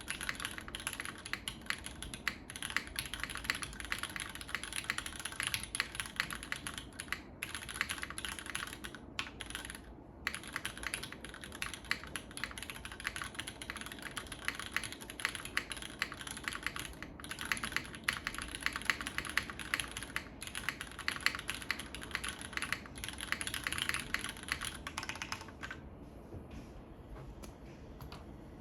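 Typing on a UTD 360 TKL mechanical keyboard with Cherry MX Black linear switches on a full aluminium plate (top and O-ring dual mount) and GMK keycaps. The keystrokes run in a fast, continuous clatter with a few short pauses, thinning out near the end.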